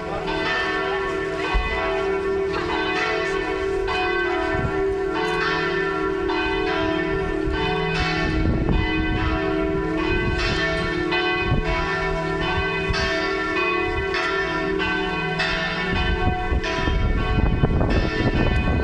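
Two church bells tuned to E and F sharp ringing together, struck over and over so their tones overlap and hum continuously. A low rumble grows near the end.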